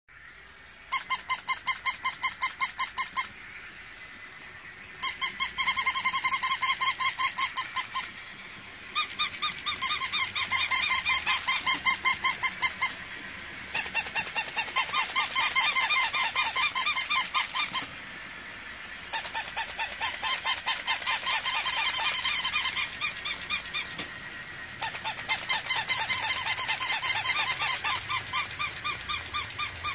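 Battery-operated plush puppy toys barking: their electronic sound chips play rapid, high-pitched yaps, about six a second, in bursts a few seconds long with short pauses between.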